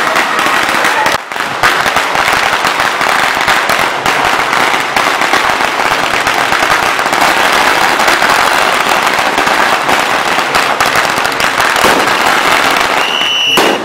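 A long string of firecrackers going off, a rapid, continuous crackle of small bangs that thins out near the end.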